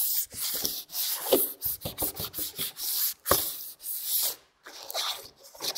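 Sandpaper on a hand sanding block scrubbing over a painted metal car door panel in quick, uneven back-and-forth strokes, with a brief pause about four and a half seconds in. The panel is being keyed, its old paint roughed up so new paint will stick.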